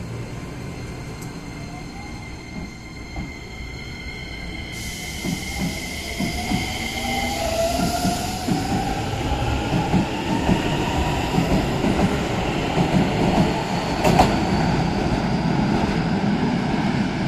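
Keisei 3200-series electric train pulling away: its traction motors' whine starts about five seconds in and rises steadily in pitch as the train gathers speed, over the rumble of the wheels on the rails. A single sharp clank comes near the end.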